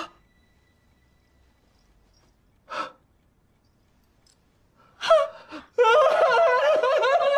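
A sharp gasp, another short breath about three seconds in, then from about five seconds a person cries out and breaks into a loud, drawn-out wail with a wavering pitch.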